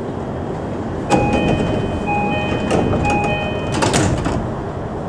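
Door-closing chime of an E233 series 2000 commuter train: a two-note chime sounded three times, then the sliding passenger doors shutting with a clatter of knocks about four seconds in, over the steady hum of the standing train.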